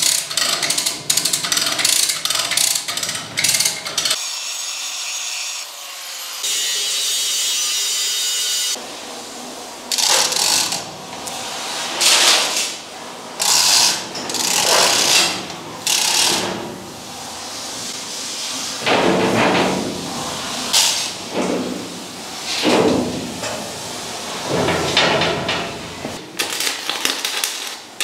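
Hand chain hoist being hauled to lift a steel hull plate: a run of clicking, then a string of about one-second bursts of chain rattle and ratchet noise, one pull after another.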